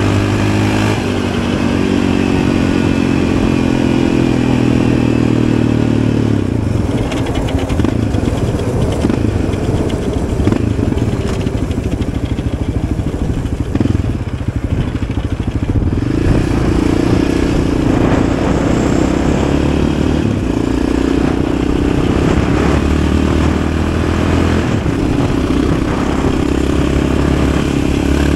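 Yamaha Raptor 700 ATV's single-cylinder four-stroke engine running as it is ridden. A steady engine note gives way to a rougher, noisier stretch in the middle, then the steady note returns.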